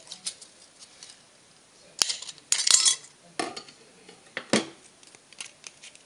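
Thin aluminium soda-can pieces handled on a hard table: scattered clinks and taps, with a louder crinkly clatter of the thin sheet metal about two to three seconds in and a few more knocks after it.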